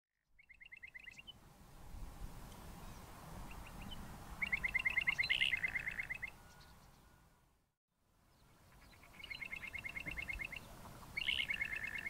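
A pair of bokmakieries duetting: bouts of fast clipped notes, about ten a second, with lower notes from the partner joining in, and a brief silent break a little past the middle.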